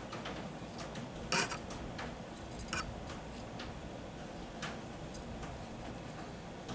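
Hands working a metal crochet hook through cotton thread while stitching: faint scattered clicks and rustles, the clearest about a second and a half in, over a low steady background hum.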